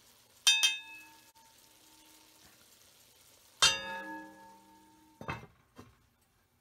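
Two sharp, ringing clangs of cookware about three seconds apart, each ringing on for a second or more, then a couple of duller knocks near the end as the lid goes onto the enameled cast-iron Dutch oven.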